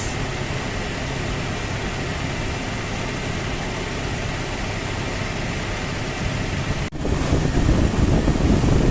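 Toyota 3RZ 2.7-litre four-cylinder engine idling steadily, with no squeal or rattle from the belt drive: its new tensioner pulley is running quiet. About seven seconds in the sound drops out for an instant and comes back louder and deeper.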